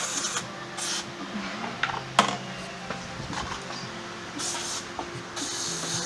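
Several short bursts of hissing spray with a single sharp clack about two seconds in, over a faint steady hum.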